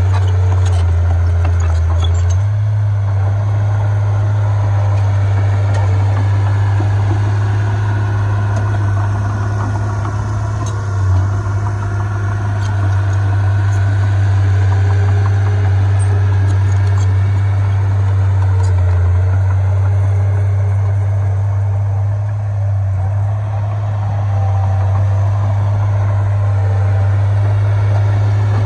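Heavy diesel earthmoving machinery running steadily with a deep, continuous engine drone.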